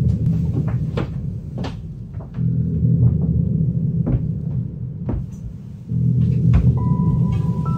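Scattered hollow knocks and creaks inside a yacht's cabin, over a low rumble that swells in spells of about two seconds, roughly every three and a half seconds. Near the end a thin high steady tone comes in.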